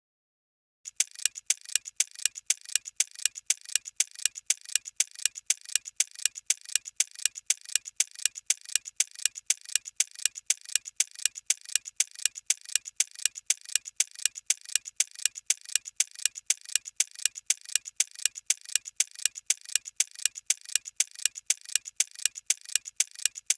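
Clock-ticking countdown-timer sound effect: a steady, even run of sharp ticks with alternating louder and softer strokes. It starts about a second in.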